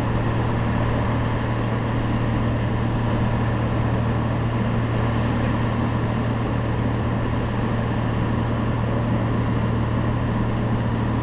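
Skid steer's diesel engine running at a steady speed, a constant low hum with no change in pitch.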